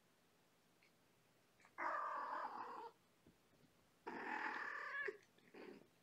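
A cat's voice: two drawn-out calls of about a second each, a couple of seconds apart, then a short third one near the end.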